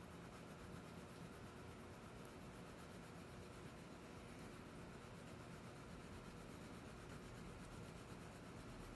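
Faint steady scratching of a wax crayon shading back and forth on paper, barely above room tone.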